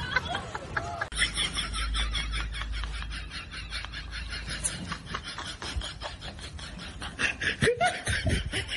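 Person laughing in a rapid run of short breathy snickers.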